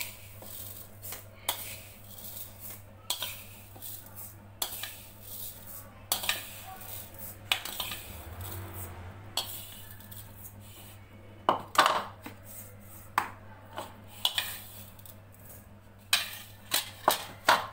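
Steel spoon scraping and clinking against a ceramic plate as roasted sesame seeds are spooned into a plastic blender jar, in irregular clicks and scrapes with a few louder knocks near the end.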